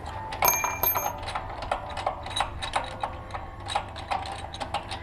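Metal clinks and clicks of a spanner working the spark plug out of a small petrol engine, with a short metallic ring about half a second in.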